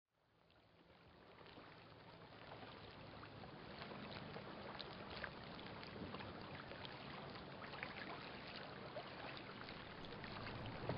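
Waterfront ambience fading in from silence: a steady hiss of wind and lapping water with small scattered ticks.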